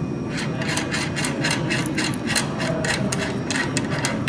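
Steady mechanical hum under a quick, uneven run of short sharp clicks, about five a second.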